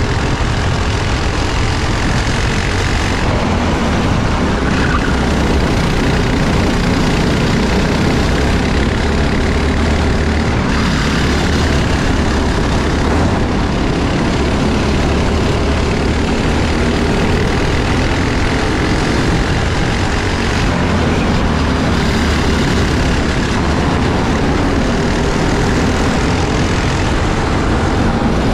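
Four-stroke Briggs & Stratton LO206 kart engine running hard at racing speed, heard loud and steady from on board the kart, with other kart engines close by.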